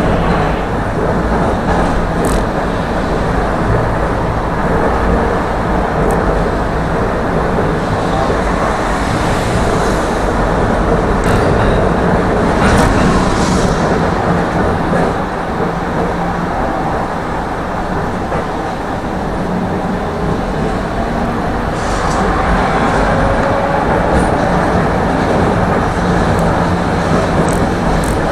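Tram running along its track: a steady rumble of wheels on rails with a few short sharp clicks.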